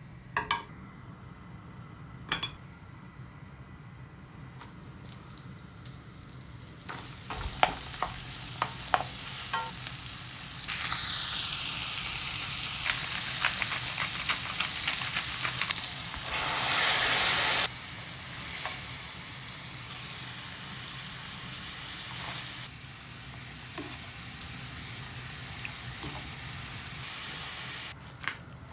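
Asparagus tips frying in butter in a metal frying pan: a couple of clinks of pan and utensils, then sizzling that swells loud about eleven seconds in. There is a brief louder rush around sixteen seconds, then steadier, quieter sizzling.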